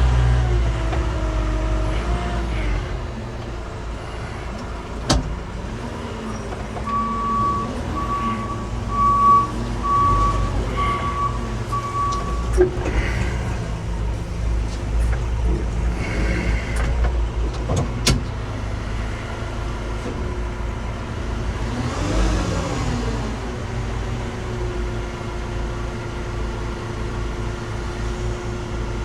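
A vehicle engine running steadily. About a quarter of the way in there is a run of six short, high beeps, about one a second, and a few sharp knocks.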